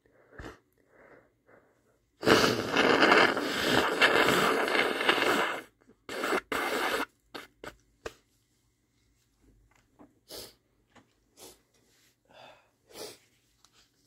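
A man blowing his nose hard and messily, one long blow of about three seconds. A shorter second blow follows, then a few brief faint sounds.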